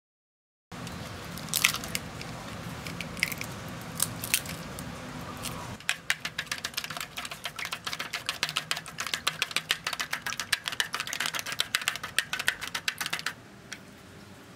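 Wooden chopsticks beating eggs in an aluminium foil pan: a fast run of sharp clicking taps against the foil, starting about six seconds in and stopping about a second before the end. Before it come a few scattered clicks and knocks. Near the end, a couple of faint snips of kitchen scissors cutting spring onions.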